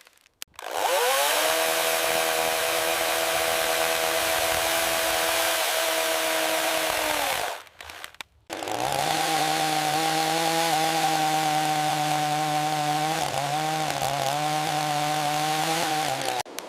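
Small chainsaw running at a steady high pitch while cutting into a moss-covered log. It runs in two long stretches with a short break about halfway, and in the second stretch the pitch dips and wavers a few times.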